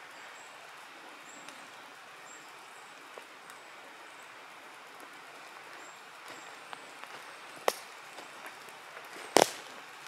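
Footsteps through dense forest undergrowth, with dry twigs snapping underfoot: a sharp snap about three-quarters of the way in and a loud double crack near the end, over a steady hiss of woodland air.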